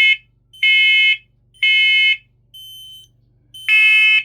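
Interconnected smoke alarms sounding the temporal-three fire evacuation pattern: three loud, shrill half-second beeps, a pause with one fainter beep, and the next round beginning near the end.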